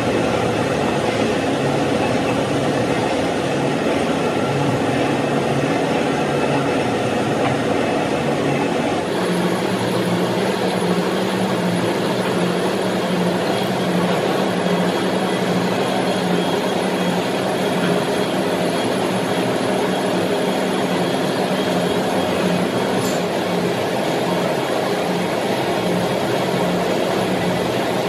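Gear hobbing machine running, its hob cutting helical teeth into a stainless steel pinion shaft: a steady machine drone. About nine seconds in the sound shifts to a steadier low hum with a faint pulse and a thin high whine.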